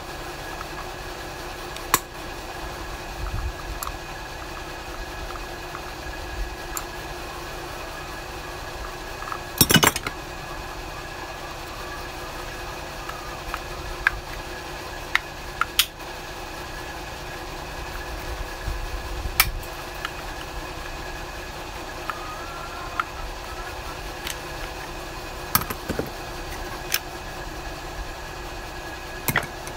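Scattered sharp clicks and clinks of pliers and a screwdriver prying at the plastic housing of a Mikuni lawn mower fuel pump, with a short burst of clatter about ten seconds in, over a steady background hum.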